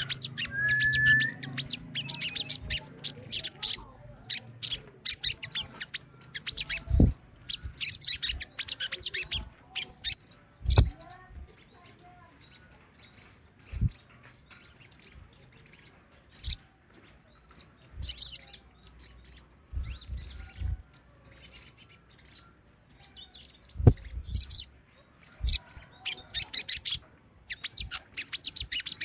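A colony of sogon birds chirping rapidly and continuously, many short high calls overlapping. A few brief low knocks come through, and a faint steady high whine runs through most of it.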